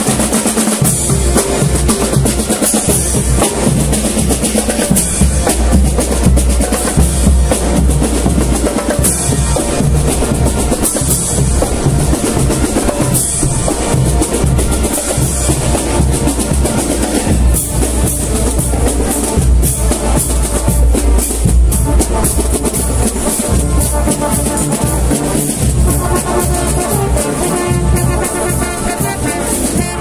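Marching band playing, its drum line of snare and bass drums carrying a loud, continuous beat; steady brass notes from trumpets and trombones come through more clearly near the end.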